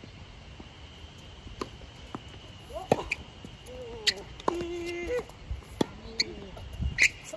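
Tennis ball struck by rackets in a rally: five sharp pops about a second or a second and a half apart, some louder and nearer than others. A few short voice-like calls sound between the shots.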